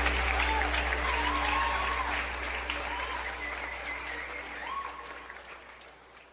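Audience applause with the last of a live worship song, a sustained low bass note and a few pitched lines, all fading out steadily to near silence.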